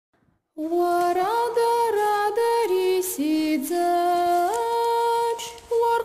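A solo voice singing a slow melody unaccompanied, holding long notes and stepping between pitches, starting about half a second in.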